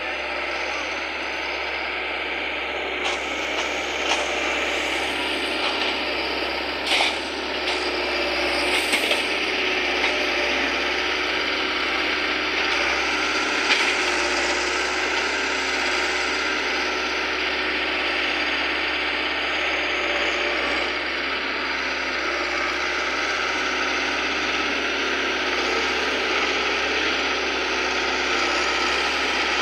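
Sugarcane loader's diesel engine running with a steady mechanical clatter as it works the cane, with a few sharp knocks in the first half.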